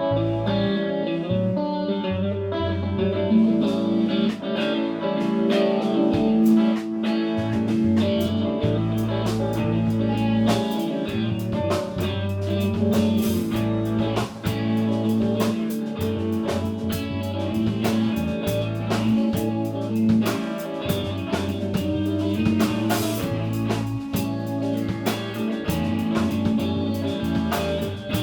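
Band playing an instrumental passage: guitar chords over sustained bass notes that change every second or two, with drums and cymbals keeping time.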